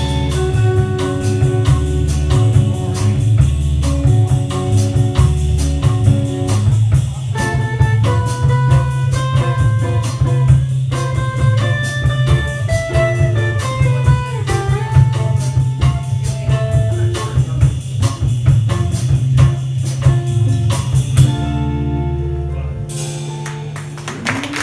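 Live instrumental jazz band: a guitar melody over stepping bass notes and a drum kit. The piece winds down and thins out in the last few seconds.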